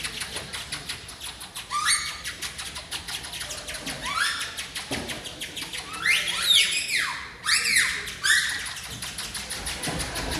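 Shrill whistles swooping upward in pitch again and again, several overlapping with some falling swoops about six to seven seconds in, over a fast, even clicking.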